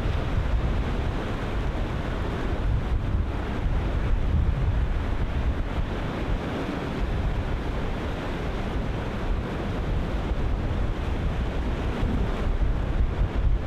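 Ocean surf breaking continuously, wave on wave, with wind buffeting the microphone in a steady low rumble.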